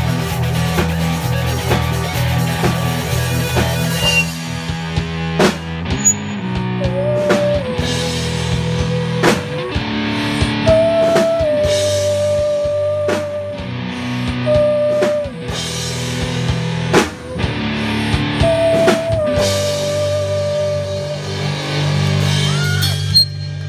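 Rock band playing, with electric guitar, bass and a drum kit. Over the beat runs a lead line of long held notes, each sliding up into pitch; the sound is poorly recorded.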